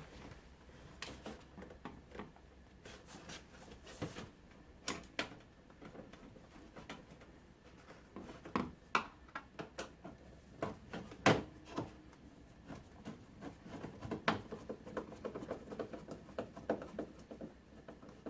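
Irregular small clicks and knocks of screws, a screwdriver and a dishwasher's door panel being handled as the screws are driven back in, with a few sharper knocks along the way.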